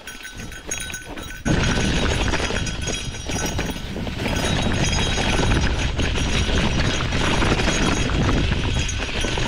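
Gravel bike rolling over a rocky dirt road: tyres crunching on loose stones and the bike rattling. About a second and a half in, the noise jumps suddenly to a dense, loud rushing and crunching that holds steady.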